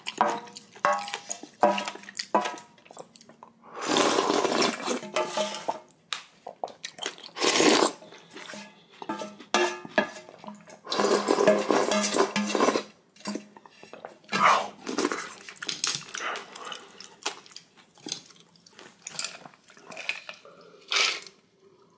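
Eating spicy ramyeon: noodles slurped in three long pulls, with many short clicks of utensils against the dish in between.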